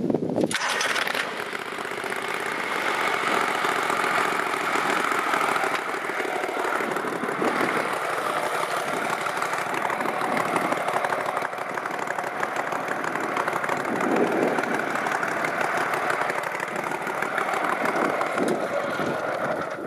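Go Devil long-tail mud motor with a modified twin exhaust, running steadily.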